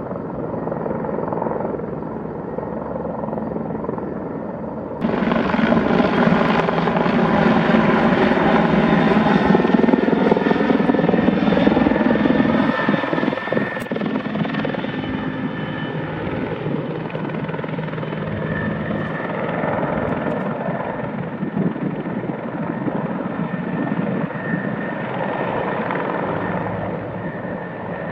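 Bell 412 four-bladed, twin-engine helicopter flying overhead, with rotor and turbine noise and a whine that glides in pitch as it passes. The sound jumps louder about five seconds in and is loudest for several seconds after that.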